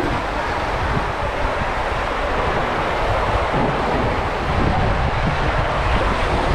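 Water rushing through an enclosed tube water slide as an inflatable ring slides down it: a loud, steady rush.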